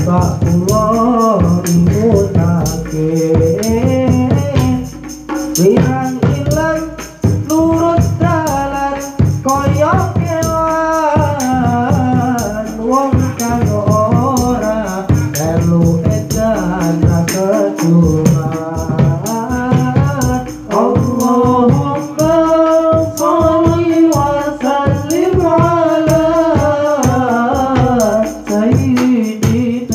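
Sholawat devotional singing with a rebana ensemble: a voice sings a flowing, ornamented melody into a microphone over hand-struck frame drums (terbang), a kendang hand drum and jingling percussion, keeping a steady driving beat.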